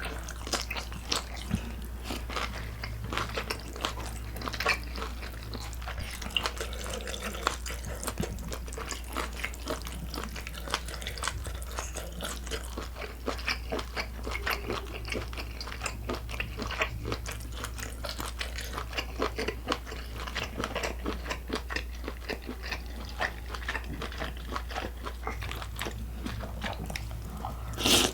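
Close-miked eating: steady chewing and biting with many small, irregular clicks and some crunchy bites.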